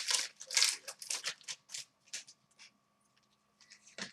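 Trading cards being slid and flipped against one another by hand: a quick run of short papery swishes for about two seconds, a pause, then a few more near the end.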